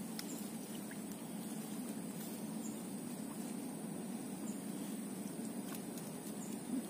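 Faint rustling and ticking of tall grass stems being handled, over a steady high insect whine and a low constant outdoor hum.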